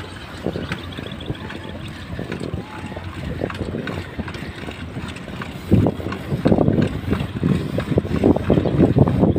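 Wind buffeting the microphone of a camera riding on a moving bicycle, an irregular gusting rumble that grows louder about six seconds in.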